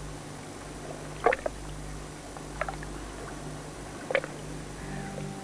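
River water slapping against a boat and the stone embankment wall, with a short splash about every second and a half over a low steady hum.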